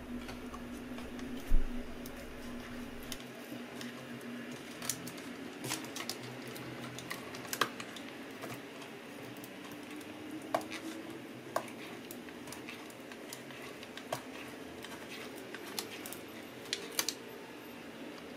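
Scattered light clicks and taps, the sharpest about a second and a half in, as thread and a plastic pry tool are worked under the glued battery cells of an opened MacBook Pro Retina, over a faint steady hiss.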